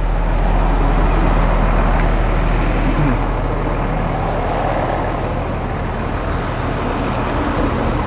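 Caterpillar C7 7.2-litre turbo diesel engine idling steadily.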